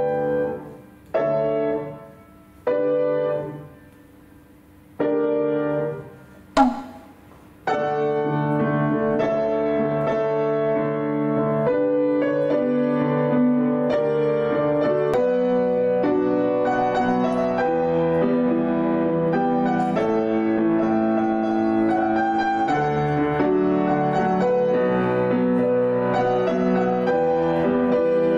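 Steinway grand piano being worked out by ear: about five separate chords struck and left to ring away, with a sharp knock among them about six and a half seconds in. Then continuous two-handed playing from about eight seconds in.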